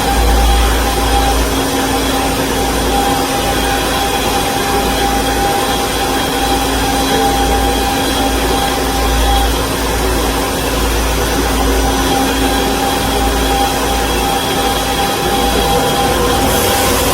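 KOTEC Diamond-1000T high-speed band saw machine running steadily: a constant mechanical drone with several steady whining tones over a deep rumble.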